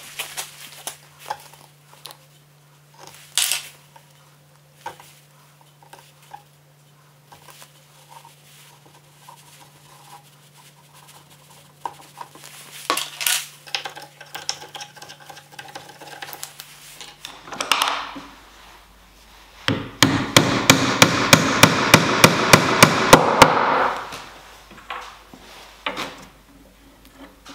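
A rapid run of about fourteen sharp hammer taps, roughly four a second, lasting some four seconds: loose wooden tenons being driven into glued mortises in an ash workpiece. Before it come scattered faint clicks and knocks from handling the piece and brushing in the glue.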